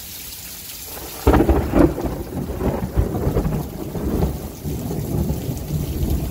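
Steady hiss of heavy rain, then, a little over a second in, a sudden loud thunderclap that rolls on as rumbling thunder over the rain.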